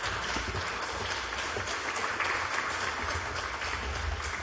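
Audience applauding: many hands clapping steadily, a dense patter.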